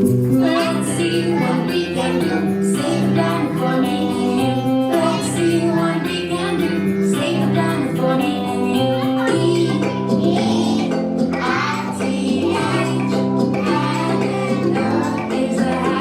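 A song playing: singing voices, child-like and female, over a steady musical accompaniment.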